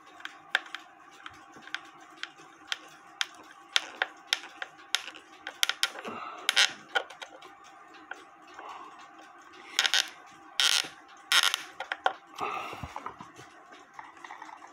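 Irregular small clicks and taps of hand work on a cuckoo clock's works and bellows, a screw being fitted, with short scratchy noises, one about six seconds in and three close together about ten seconds in.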